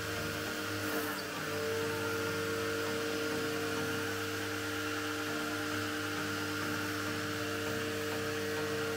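Agaro Royal 1800 W electric pressure washer running steadily under load as its gun sprays, the motor and pump giving a constant hum with the hiss of the water jet over it.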